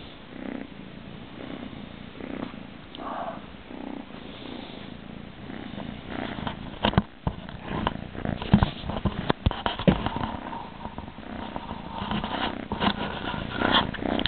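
Ginger kitten purring. From about six seconds in, frequent knocks and rustling as the kitten presses its face against the camera.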